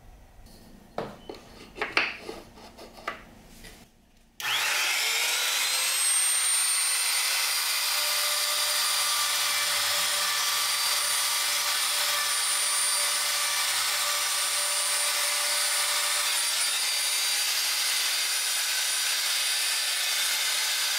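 A few light knocks and clicks of wood strips being set into a jig, then a compact trim router starts with a quick rising whine and runs at a steady high whine as it routes the edge of a wooden strip.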